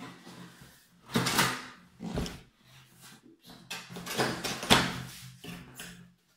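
Large cardboard box being pulled open: cardboard scraping, rubbing and tearing in several noisy bursts, the loudest near the end.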